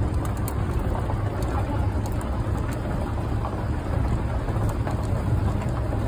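Open-sided safari vehicle driving along a dirt track: a steady low rumble and rushing noise from the moving vehicle.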